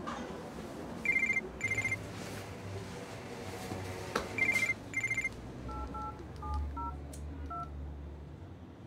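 A telephone's electronic ring in short double rings, sounding twice about three seconds apart. Then a quick run of keypad tones as a number is dialled on a mobile phone.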